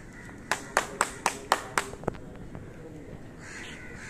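About six sharp hand claps in quick succession, roughly four a second, then one more softer clap, the way pigeon keepers clap to keep released birds flying.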